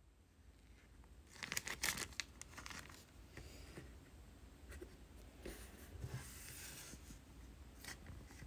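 Clear plastic zip bag crinkling as it is handled, in a few short crackly bursts, loudest about one to two seconds in.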